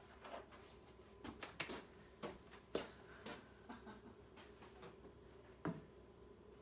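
Scattered light knocks and rustles from someone moving about a room, over a faint steady hum.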